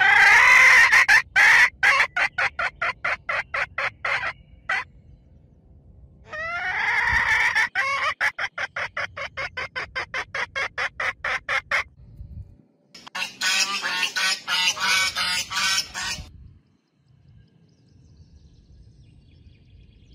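Domestic fowl calling: two long runs of rapid, evenly spaced calls, about five a second, each opening with a loud squawk, then a rougher call about thirteen seconds in, after which it goes quiet.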